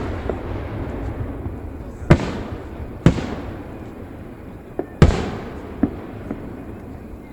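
Aerial fireworks shells bursting: three loud booms about two, three and five seconds in, each trailing off in a long rumbling echo, with smaller pops and crackles between them.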